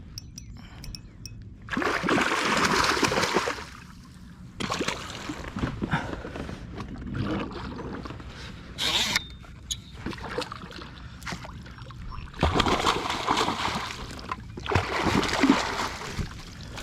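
Water splashing and sloshing in several separate bursts, each a second or two long.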